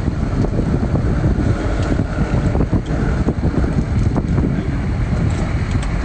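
Wind buffeting the microphone: a loud, steady low rumble, with a few faint clicks.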